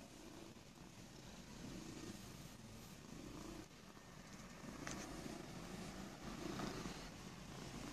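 Domestic cat purring as it is stroked on the head, the purr swelling and fading about every second and a half. A short click comes about five seconds in.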